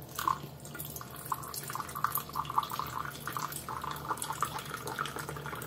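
Water running into the plastic water tank of an ultrasonic aroma diffuser humidifier as it is filled: a steady rush of water with many small, irregular splashing plinks.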